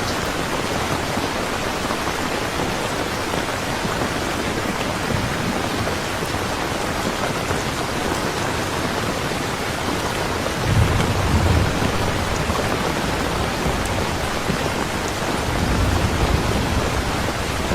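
Steady rain falling, with thunder rumbling low twice: once about eleven seconds in and again near the end.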